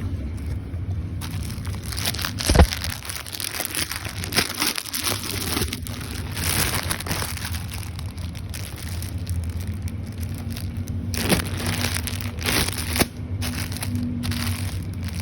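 Plastic parcel packaging crinkling and rustling in irregular bursts as it is handled and opened, with one sharp knock about two and a half seconds in, over a steady low hum.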